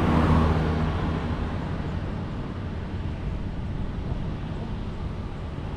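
A motorbike passing along the road, its engine fading away over the first second or so, leaving a steady hum of distant city traffic.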